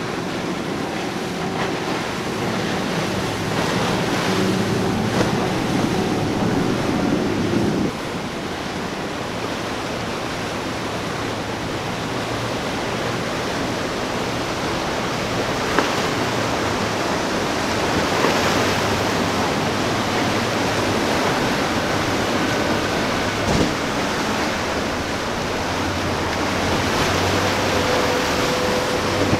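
Rushing wind on the microphone and churning surf and boat wake, over the low drone of passing powerboat engines. The engine sound changes abruptly about eight seconds in, from a Seaswirl cabin boat running hard through chop to a large flybridge motor yacht's fainter, steadier drone.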